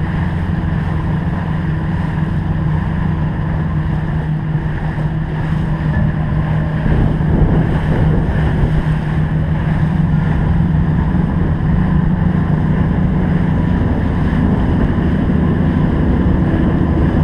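Boat motor running steadily under way, with wind buffeting the microphone; it grows a little louder about seven seconds in.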